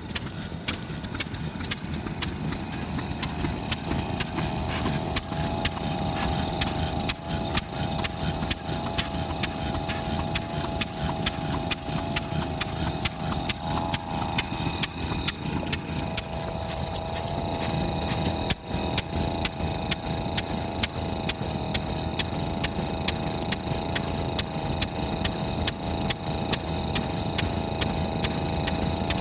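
Kubota FF-type 10 hp stationary engine running with regular, even firing strokes, about three a second, over a steady mechanical hum.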